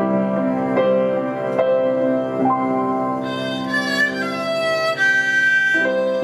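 Background instrumental music: a slow melody of held notes over chords struck at an even pace, with a higher wavering line in the middle.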